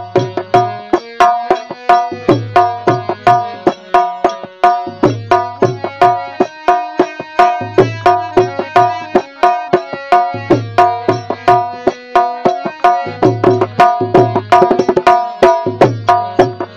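Instrumental interlude of a Gujarati desi bhajan: a quick repeating melody of short plucked or struck notes over a tabla-style drum rhythm, with groups of low bass thumps returning every two to three seconds. A fast drum roll comes about fourteen seconds in.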